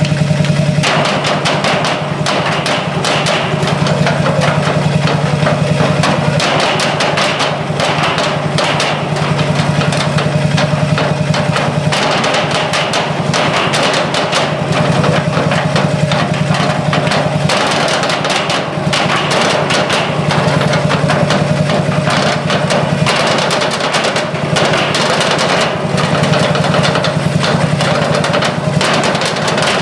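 Percussion ensemble drumming fast, dense rhythms with wooden sticks on barrels covered in black plastic. A stationary engine runs steadily beneath the drumming.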